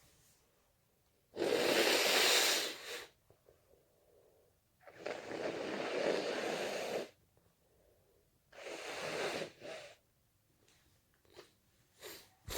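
A person with a stuffy nose letting out three long, forceful breathy blasts, the first about a second and a half in and the loudest, the last shorter, followed by a few faint short breaths or sniffs near the end.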